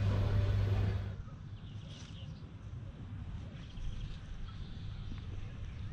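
A steady low motor-like hum, as from a vehicle engine, for about the first second, then cutting off abruptly. After that, quiet outdoor ambience with faint, scattered bird chirps.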